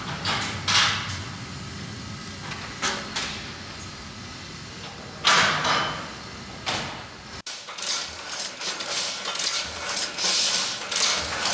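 Footsteps on concrete echoing in an underground parking garage over a low hum, then a car door opening and slamming with a loud echoing knock. After a sudden cut comes busier room noise with light metallic clicks and clinks.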